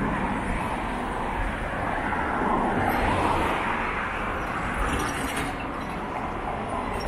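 City road traffic: cars and a minivan driving past close by, a steady mix of tyre and engine noise that swells and eases as the vehicles go by.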